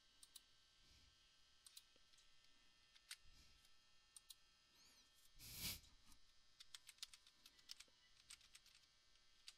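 Near silence: faint room tone with scattered soft clicks, and a brief soft rush of noise about halfway through.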